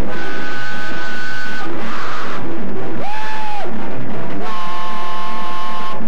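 Instrumental music led by guitar, with a short sliding tone about halfway through.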